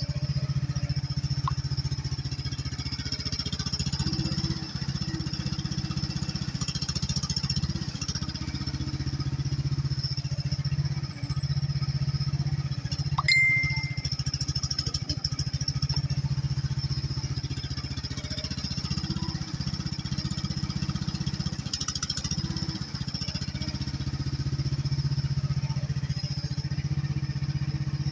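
HT10 mini excavator's engine running steadily while it digs, its note rising and falling every few seconds as the hydraulics take load. A single short metallic ding comes about halfway through.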